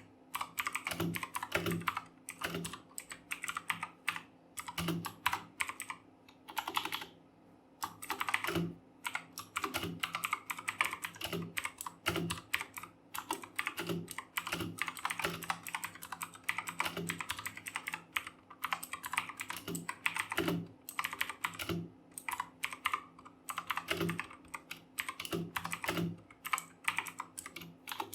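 Fast typing on a Redgear Chameleon mechanical keyboard with clicky Kailh Blue switches: a rapid, irregular clatter of key clicks, with a brief pause about seven seconds in.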